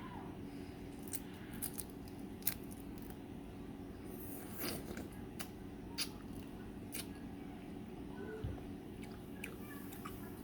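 Quiet eating of balut: scattered faint clicks and soft chewing sounds, over a steady low hum.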